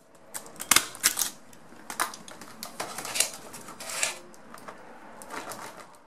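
Clear plastic blister packaging crinkling as it is handled, a run of sharp, irregular crackles with softer rustling between.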